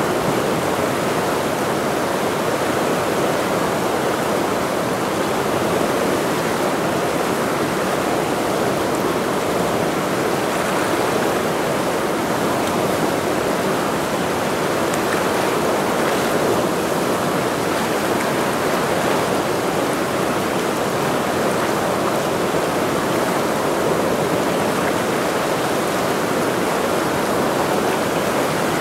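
The Ursul, a fast mountain river, rushing in one steady, unbroken sound of moving water.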